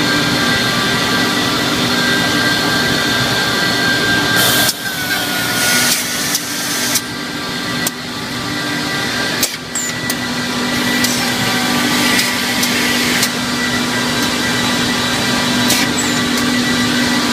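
A machine running steadily with a constant hum and a high whine. A run of sharp clicks and knocks comes between about five and ten seconds in, while the level dips and recovers.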